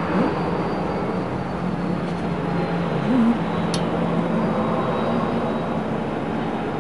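Steady engine noise of a landing aircraft, with a single sharp click a little past halfway.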